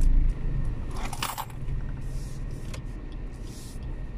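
Car engine and road rumble inside the cabin as the car rolls slowly, with a short jingling rattle about a second in and a few light clicks.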